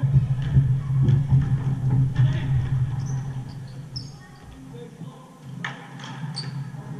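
Pickup basketball on a hardwood gym floor: sneakers squeaking in short high chirps and the ball bouncing, with faint echoing voices of players, over a steady low hum.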